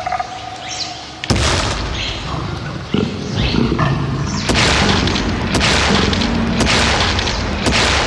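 Designed dinosaur sound effects: deep creature roars layered with booming rumbles, each new one starting suddenly, about a second in, at three seconds and again at four and a half seconds.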